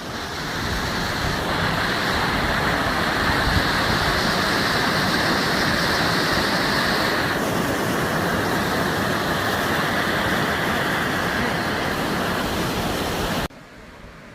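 River rapids rushing in a steady loud wash of water, the flow running high after recent rain. It drops suddenly to a much quieter hiss near the end.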